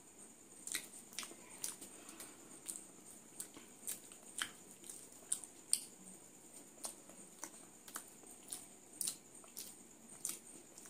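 Close-up chewing and lip-smacking while eating puri and potato curry by hand: irregular short moist clicks, about one or two a second, over a faint steady high hiss.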